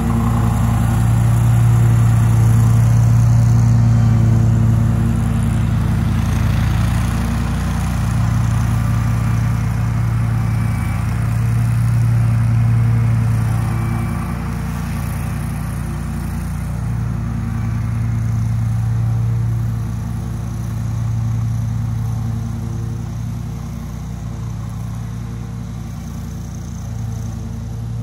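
Zero-turn mower's 779cc Honda V-twin engine running steadily with its 60-inch deck cutting tall wet grass, growing fainter as the mower drives away.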